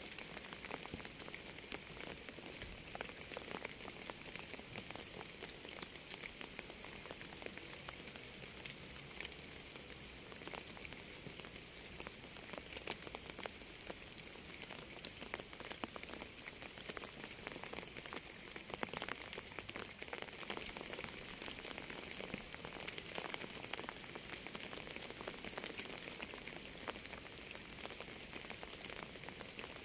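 Steady rain falling, a constant hiss with many small drops ticking through it.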